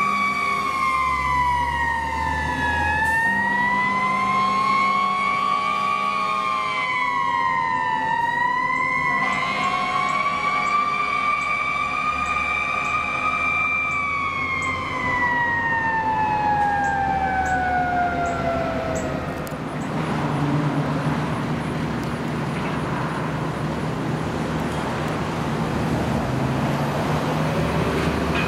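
E-One fire engine's siren wailing, slowly rising and falling several times. It then winds down in one long falling glide and stops about 20 seconds in, leaving the truck's engine and road noise as it drives off.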